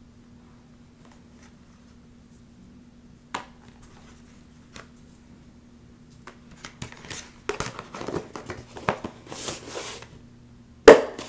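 Hands sorting embroidery floss and craft supplies. A faint hum and an isolated click give way to a run of rustling, crinkling handling noises and small clicks, with one sharp click near the end.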